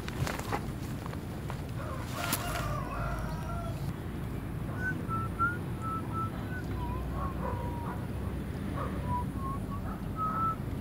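A rooster crowing in a string of short, wavering calls through the second half, over a steady low outdoor background. A couple of sharp knocks or splashes come in the first few seconds.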